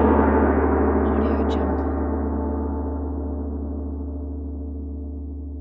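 A China gong rings out after a single strike, fading slowly and evenly, the bright upper tones dying away first while the deep hum lingers.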